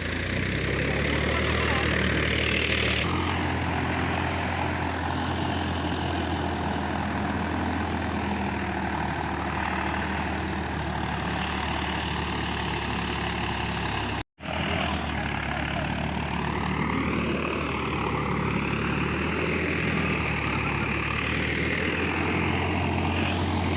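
Tractor engine running steadily with a low, even drone, broken by a very short gap about fourteen seconds in.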